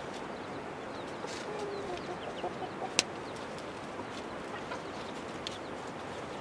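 Chickens clucking softly in short calls, with a single sharp click about three seconds in.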